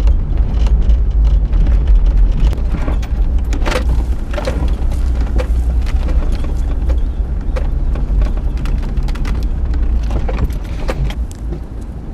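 A 2001 Hyundai Galloper 4x4 crawling down a rocky dirt track: a heavy, steady low rumble with scattered sharp knocks and clicks as stones and the running gear are worked over. The rumble eases near the end.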